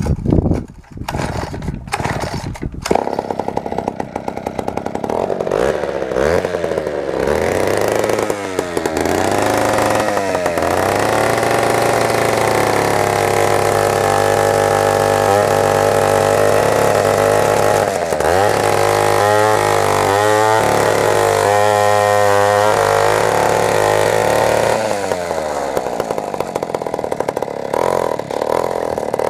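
Vintage Poulan model 86 sandcast two-stroke chainsaw firing with irregular pops as it comes to life, then revved up and down several times. It then runs at a steady high speed, with the pitch wavering for a few seconds past the middle.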